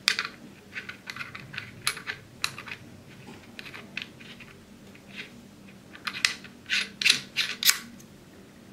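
Irregular small plastic clicks and taps from fingers handling the Polemaster's cap and threading its lanyard's little screw, coming thicker near the end.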